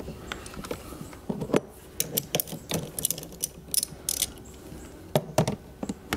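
Hand socket ratchet clicking in short, irregular runs as it turns the 10 mm nut on a car battery's positive terminal, with light metal clinks from the tool and terminal.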